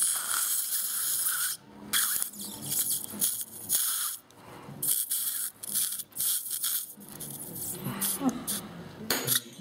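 Dental surgical suction tip hissing and slurping in repeated bursts as it draws water and saliva from the mouth during a tooth extraction.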